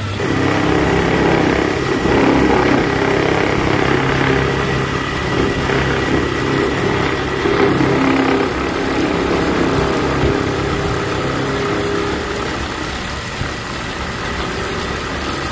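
Small belt-driven metal lathe running, its motor and V-belt drive giving a steady mechanical hum; it eases slightly in the last few seconds.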